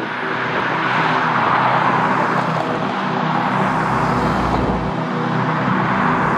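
Jet airliner engines running steadily, a loud even rush of noise with a low hum of steady tones beneath it.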